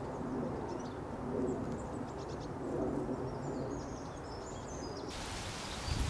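A pigeon cooing in low, repeated phrases, with a few faint high bird chirps. About five seconds in, a steady airy hiss of wind and rustling takes over.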